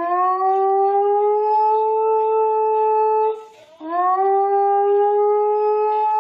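A dog howling: two long held howls, each opening with a short upward scoop and then holding a steady pitch, the second starting a little under four seconds in.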